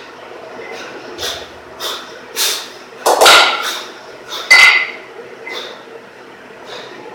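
Two 12 kg cast-iron kettlebells clanking against each other during a double-kettlebell long cycle, with two loud metal clanks about three and four and a half seconds in, the second ringing briefly. Lighter knocks come before them.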